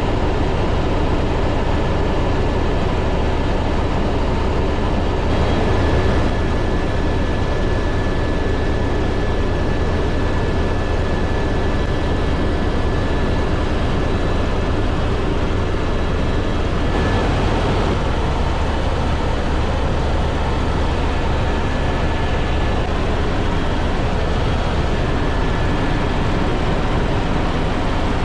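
Airbus H125 helicopter in cruise flight, heard from inside the cabin: the steady low rumble of the main rotor and its single Arriel turboshaft engine, with a thin steady whine above it.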